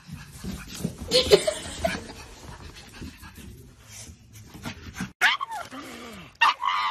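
Pugs whining and yipping in short calls that fall in pitch, starting about five seconds in. Before that, only faint knocks and clicks.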